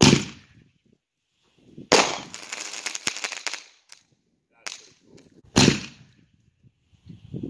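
1.5-inch aerial ball shells fired from mortar tubes: a sharp launch bang at the start, a shell break about two seconds later followed by well over a second of dense crackling, and another sharp launch bang about five and a half seconds in.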